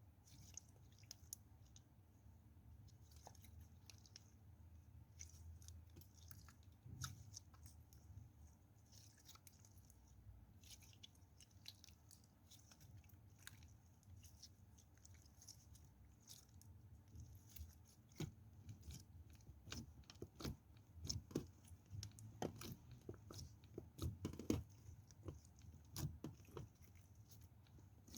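Bar soap being cut and crushed, giving crisp crunching and crackling: faint, scattered crackles at first, then louder, denser crunches through the last third.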